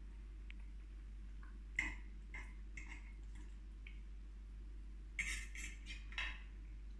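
Eating with a fork from a plate: a few short clicks and scrapes of the fork against the plate as pasta is picked up, the loudest about two seconds in and a quick cluster near the end.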